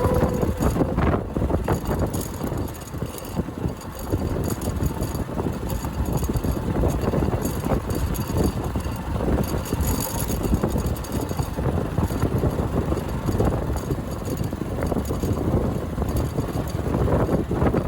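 Motorcycle riding over a rough unpaved road: a low, uneven rumble of the engine and the bumping bike with many irregular small knocks, under heavy wind buffeting on the microphone.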